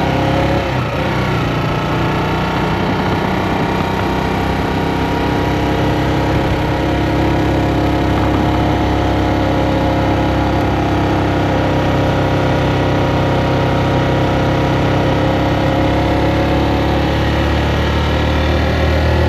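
Motorcycle engine running steadily while being ridden, loud and close, with only slight changes in pitch.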